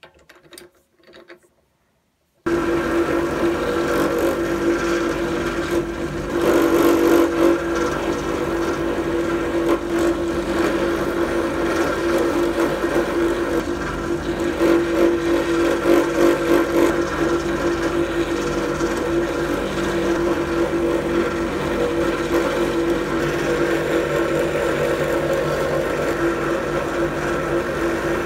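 A few faint handling clicks, then about two and a half seconds in a bench drill press motor switches on and runs steadily, spinning a cloth buffing mop against which metal grease gun parts are held to polish them. The steady hum swells a little at times.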